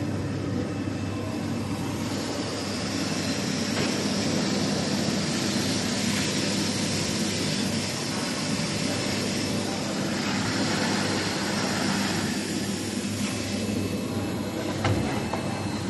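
Automatic pocket welting sewing machine running: a steady mechanical hum with a hiss over most of it, and a short knock near the end.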